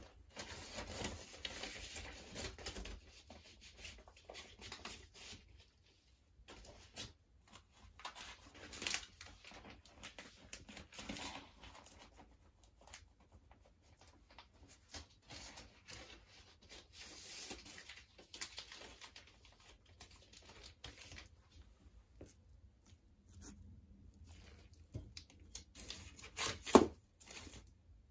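Paper inner sleeve and cardboard jacket rustling and scraping as a vinyl record is worked back into its sleeve, in fits and starts with short pauses. One sharp knock near the end.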